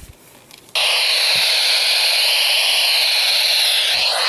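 Loud, steady radio static hiss that cuts in suddenly about three-quarters of a second in, shifting slightly in tone near the end.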